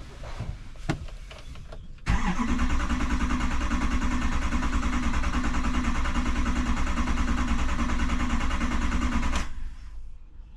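A 6.6 L Duramax diesel turned over by its starter motor, cranking steadily for about seven seconds, beginning about two seconds in, then stopping. This is cranking to draw fuel through a fuel system re-primed by hand after it lost pressure over a three-month lay-up, the cause of the crank-no-start.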